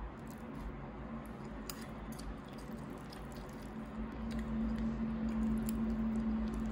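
Metal chopsticks picking apart grilled flatfish on a plate: soft squishy flaking of the flesh with a few faint clicks of the chopsticks. A steady low hum runs underneath and grows louder about four seconds in.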